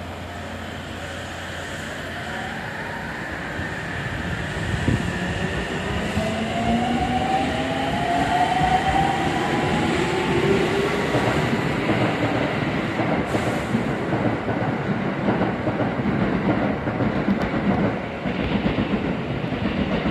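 Nagoya Rinkai Rapid Transit 1000 series electric train accelerating: its traction motors give a whine that rises slowly in pitch over several seconds, then the wheels run on the rails with a dense rumble and rapid clatter as the cars pass.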